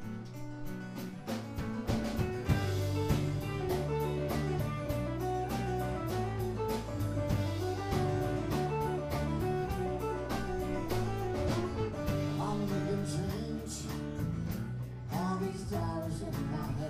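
Live band playing a song on electric bass, electric guitar and acoustic guitar over a steady drum beat, starting up in the first couple of seconds.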